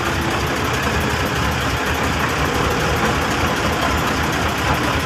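Heavy diesel machinery engine idling steadily, with a low even throb.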